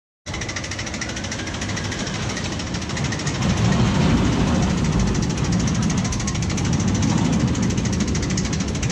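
Steel roller coaster train rumbling along its track, the rumble swelling as the train passes about three to four seconds in and again later.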